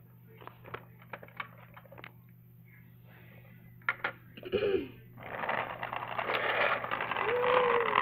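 Small plastic clicks and taps as toy figures are set into plastic toy cars, then from about five seconds in a louder, steady rolling and scraping noise as the plastic toy limousine is pushed across a wooden floor.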